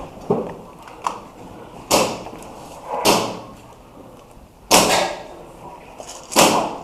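Airsoft guns fired as single shots, about half a dozen sharp cracks at irregular gaps of roughly a second, each with a short echo; the loudest two come near the end.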